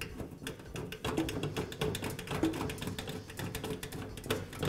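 Hand screwdriver driving a screw into a sheet-metal vent-fan housing, making a string of small irregular clicks and metal-on-metal scrapes.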